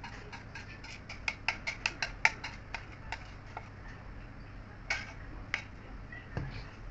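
Light, sharp clicks of a kitchen utensil against a bowl while mixing, about six a second for the first three seconds, then a few scattered clicks.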